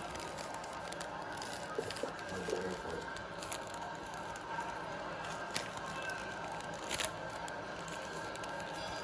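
Plastic Rubik's cube being handled and turned: faint clicking and rattling, with a few sharper clicks a couple of seconds apart, over a steady hiss.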